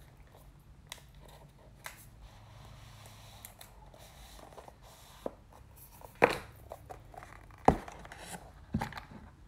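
A white paperboard Apple Pencil box being opened and handled: faint rustling and scraping of the box parts, with a few sharp knocks, the loudest a little after six seconds in and again near eight seconds in.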